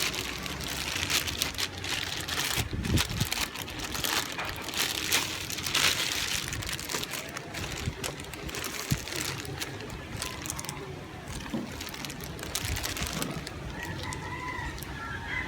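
Rustling, crinkling and light knocks as plastic rain visor pieces and their packaging are handled.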